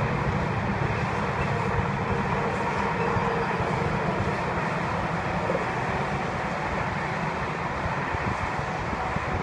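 Steady noise of highway traffic, cars and semi trucks, with no single vehicle standing out.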